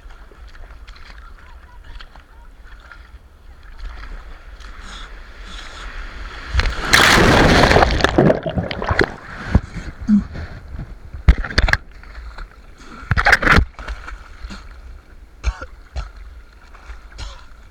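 Seawater splashing and sloshing close to the microphone while surfing, with a low rumble underneath. About seven seconds in comes a loud rush of water lasting nearly two seconds. Several short sharp splashes follow later.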